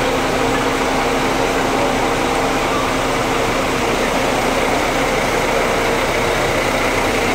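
Large bus diesel engine idling steadily: an even hum with a constant low drone.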